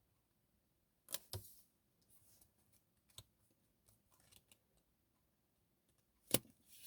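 Tarot cards being handled and laid down: a few light snaps and rustles, the sharpest one about six seconds in.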